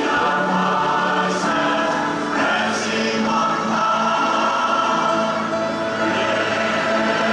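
Large mixed choir of men and women singing a sacred song in long held notes.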